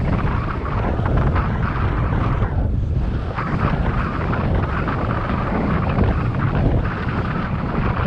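Wind buffeting the microphone of a camera carried on a moving bicycle, a loud, steady rumbling rush.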